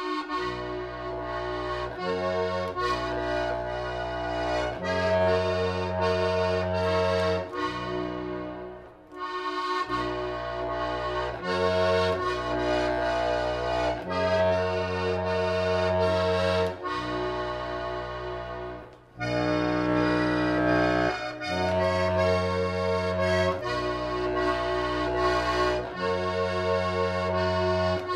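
Instrumental accordion music: held chords over a bass that changes in blocks, played in phrases with short breaks about 9 and 19 seconds in.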